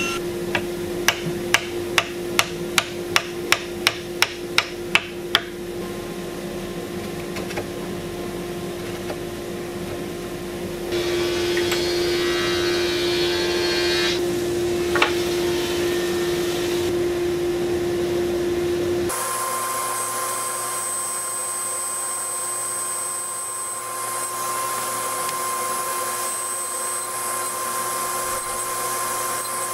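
Woodworking tool sounds: about a dozen sharp, evenly spaced knocks over four or five seconds, like striking wood, then steady shop machine noise.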